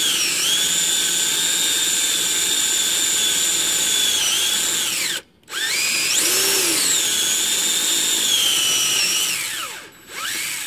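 Electric drill boring out a broken oil pan bolt in the engine block with a larger bit: a steady high whine that winds down and stops about five seconds in, then spins up again, runs steadily and winds down near the end.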